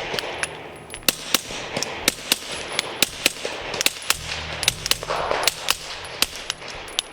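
Ruger RXM pistol fired through a Dead Air RXD910Ti titanium suppressor in a rapid string of shots, about three a second, each a sharp, short crack.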